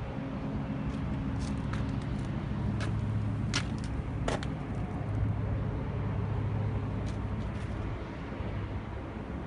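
Yutani YS750-2 excavator's diesel engine running steadily, with several sharp clicks and knocks in the first half and a couple more near the end.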